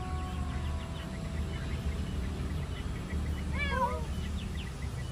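A cat gives one short meow, rising then falling in pitch, about three and a half seconds in, over a steady low background rumble.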